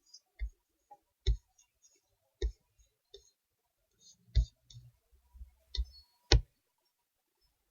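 Irregular sharp clicks and knocks close to the microphone, about seven louder ones with a low thump on each and fainter ticks between, as of gear being handled at the desk.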